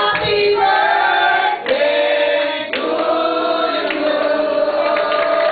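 A group of people singing together, holding long notes one after another.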